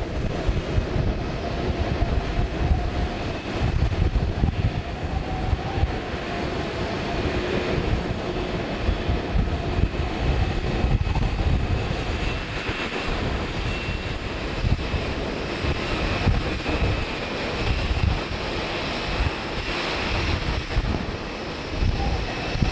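Boeing 767 airliner's twin jet engines at taxi power, a faint steady whine under wind buffeting the microphone with a gusty low rumble.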